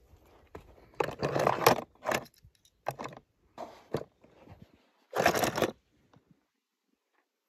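Toy cars being handled, with several short bursts of clattering and scraping on a hard surface.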